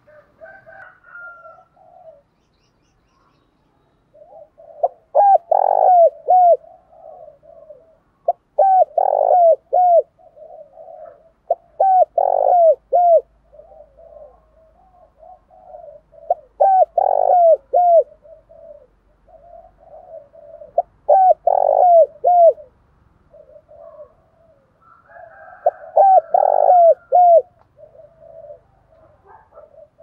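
Spotted dove cooing: six loud phrases of a few deep coos each, one every four seconds or so, with softer cooing notes in between.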